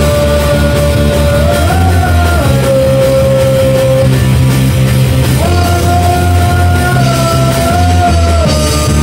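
Rock band playing loud in a room: electric guitars, bass and drum kit together, with long held notes on top that step to a new pitch every few seconds.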